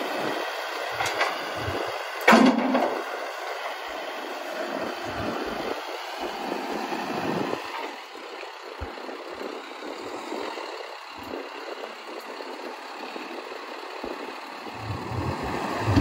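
John Deere 310K backhoe loader's four-cylinder diesel engine running as the machine drives across gravel, with a sharp clunk about two seconds in. It gets louder near the end.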